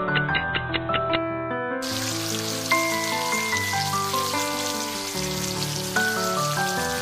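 Beaten egg sizzling as it fries in hot oil in a pan, a loud steady hiss that starts suddenly about two seconds in. Background music with plucked notes plays throughout.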